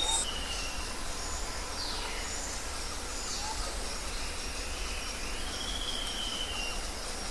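Small birds calling in the background: thin whistles and high chirps, with a falling sweep about two seconds in and a long whistle that rises and falls near the end, over a steady low rumble.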